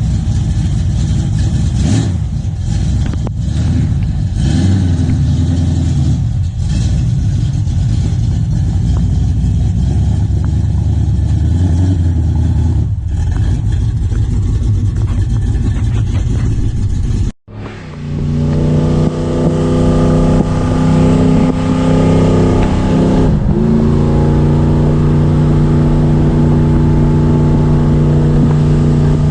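A car driving, with a rough road-and-engine rumble and occasional knocks. After a sudden cut, a car engine idles with a strong, steady drone, its pitch shifting up briefly twice as it is revved.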